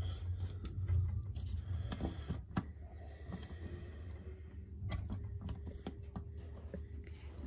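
Faint metallic clicks and scrapes as a flywheel puller's centre screw is threaded by hand against the flywheel of a Homelite XL2 chainsaw, over a steady low hum. There is one sharper click about two and a half seconds in.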